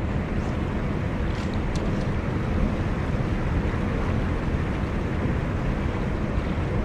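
Steady rush of a flowing creek, with wind buffeting the microphone.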